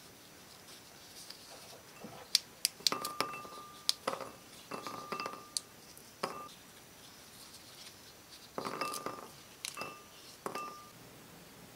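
Tableware knocking together: a series of light clinks, several with a short ring. They come in two clusters, one starting about two seconds in and another about eight and a half seconds in.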